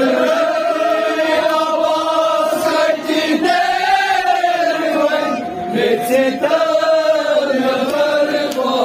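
Men chanting a Kashmiri noha, a Shia mourning lament, together through microphones and loudspeakers, drawing out long held notes.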